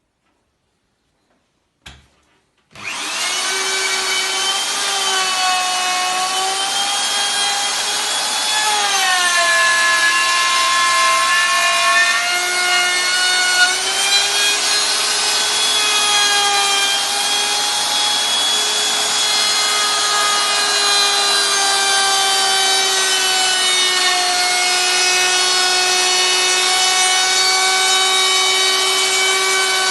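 Electric milling cutter routing a wooden scabbard insert: after a click, the motor starts about three seconds in and runs with a steady high whine over the rasp of the cutter in the wood. The pitch sags and recovers a few times as the cutter takes load.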